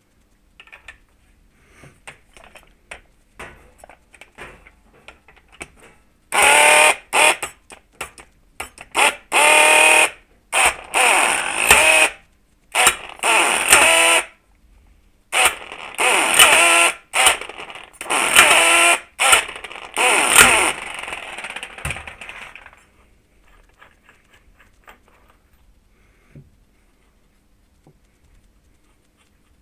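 Impact wrench hammering in about ten short, loud bursts over some sixteen seconds, each with a high whine, driving a puller bolt to pull the magneto flywheel off a Honda CRF crankshaft. Light clicks of hand tools being handled come before and after.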